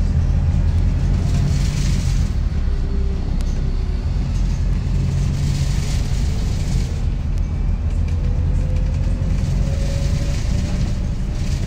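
Cabin sound of a Volvo B5TL double-decker bus (Wright Gemini 3 body) under way: a steady low drone from its four-cylinder diesel engine, with road and body noise. A faint whine rises slowly in pitch over the second half.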